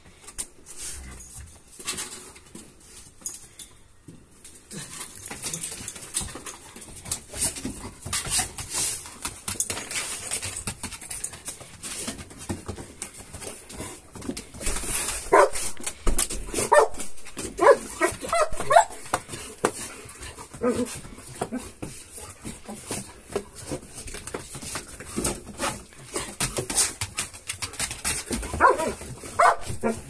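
Dogs whining, yelping and barking in excited greeting, the high pitched cries bunching up about halfway through and again near the end, among many short clicks and scrabbles.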